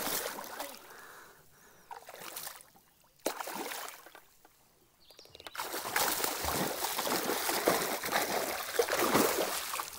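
Hooked musky thrashing at the water's surface beside a kayak: splashing comes in bursts with short quiet gaps, then turns heavier and steadier for the last half.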